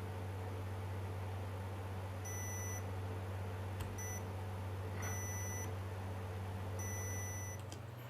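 Four short electronic beeps, three of about half a second and one very brief, over a steady low electrical hum.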